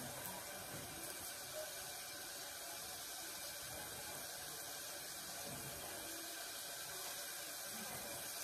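Faint steady hiss of a pot of tomato sauce simmering on a gas burner.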